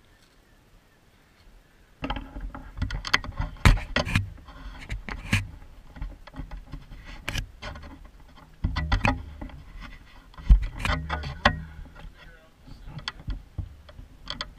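Camera handling noise: irregular knocks, bumps and rubbing right against the microphone as the camera is picked up and moved, starting about two seconds in after near quiet.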